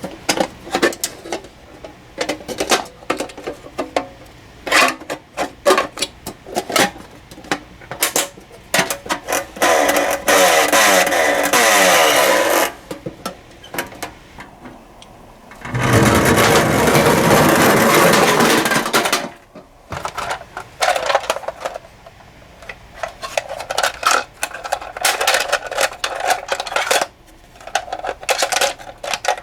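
Tomica die-cast toy cars clicking and clattering as they roll along a plastic track, with two louder stretches of a few seconds each, about ten and sixteen seconds in.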